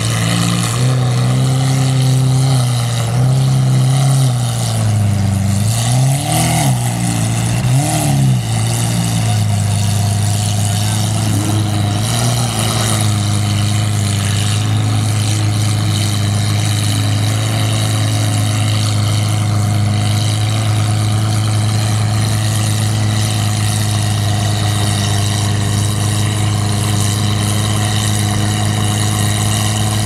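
Lamborghini Aventador Roadster's V12 with an IPE Innotech exhaust idling, with two quick blips of the throttle about six and eight seconds in, then settling into a steady idle.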